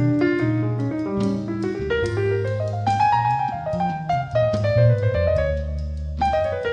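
Background piano music: a melody of quick notes over low sustained bass notes.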